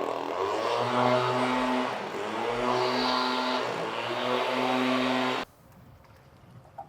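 A motor vehicle's engine running nearby, its pitch gliding up and settling several times as it revs, until it cuts off abruptly about five seconds in.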